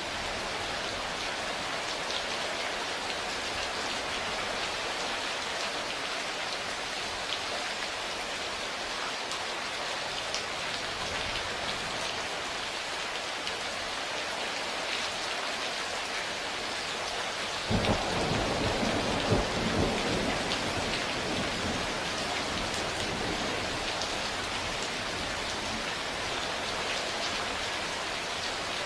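Steady heavy rain falling, with a single clap of thunder breaking in suddenly about two-thirds of the way through and rumbling away over a few seconds.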